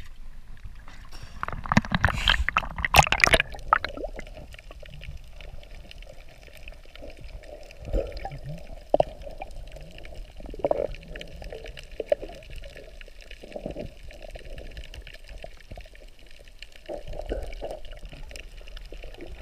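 Sea water splashing hard for about two seconds as the camera is plunged in. Then the muffled, dull sound of a microphone underwater, with scattered knocks and gurgles.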